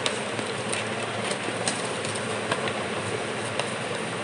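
Cardboard packaging of a camera box being handled, giving scattered light clicks and taps over a steady rushing background noise.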